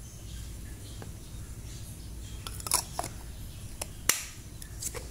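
Plastic cosmetic packaging being handled: a few scattered light clicks and brief rustles of plastic, over a faint steady room hum.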